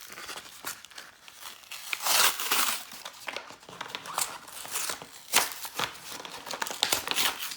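Crinkling and rustling of trading-card packaging as it is handled, in irregular crackles with a louder, denser stretch about two seconds in.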